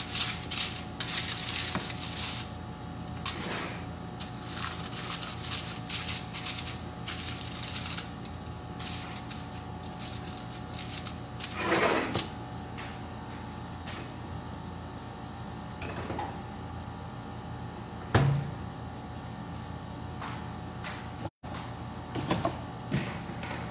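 Aluminium foil crinkling and rustling as it is folded and pressed around a food tray by hand, in dense bursts for the first several seconds and sparser later. A single sharp knock comes about 18 seconds in, over a steady low hum.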